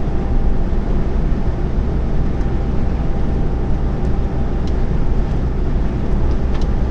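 Steady engine drone and road noise inside a lorry cab, cruising along a motorway.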